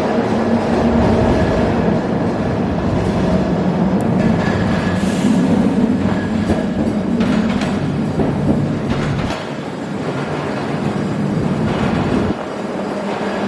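Buffalo Metro Rail light-rail train running, a steady hum with a few held tones over a low rumble; the rumble drops away about nine seconds in and again near the end.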